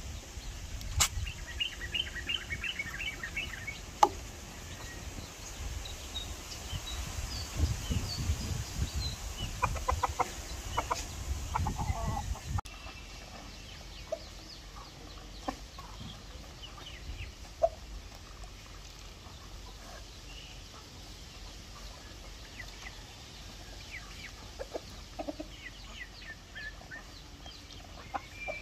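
Backyard chickens clucking, with scattered short calls from the flock. A low rumbling noise runs under the first half and stops abruptly about twelve seconds in.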